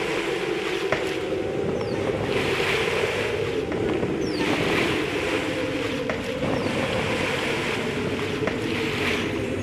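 Water and wind on an open river, heard from a boat: a hiss that swells and washes every couple of seconds over a constant low drone.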